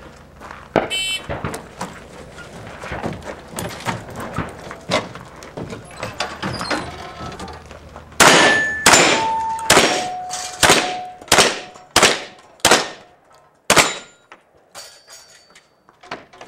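A shot timer beeps once, then a fast string of gunshots follows. Quieter shots run through the first few seconds, then about nine loud shots from a shoulder-fired long gun come roughly every half second or so. Steel targets ring briefly after some of the hits.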